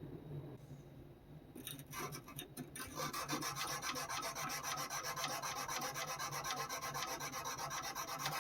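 Sandpaper rubbing back and forth on a steel knife blade: hand sanding the blade to an even, scratch-free finish. A few separate strokes about a second and a half in, then fast, even scraping strokes, several a second, from about three seconds in, stopping abruptly at the end.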